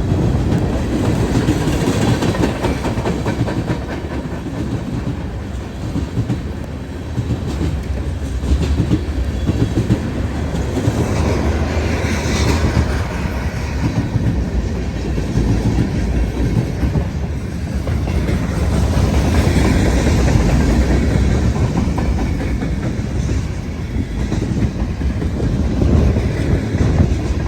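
BNSF manifest freight train passing at speed: steel wheels clattering steadily over the rails as the cars go by.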